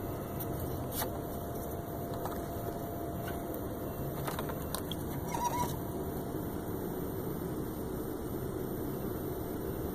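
A steady low mechanical hum, with a few faint clicks and taps of handling.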